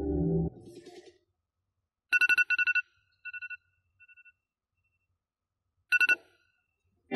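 Phone alarm tone laid in as a sound effect, not coming from the phone: a quick run of bright beeping pulses about two seconds in, repeating twice more and more faintly, then one more short loud burst of beeps near the end. Music fades out in the first second.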